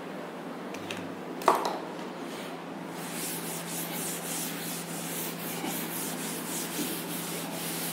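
A duster wiping chalk off a chalkboard in repeated scraping strokes from about three seconds in. A single sharp knock comes about a second and a half in.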